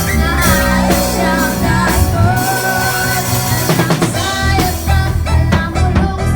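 Worship song with a singer, guitar and a drum kit playing a steady beat; the kick drum is driven by a repaired 15-year-old bass drum pedal that works without trouble.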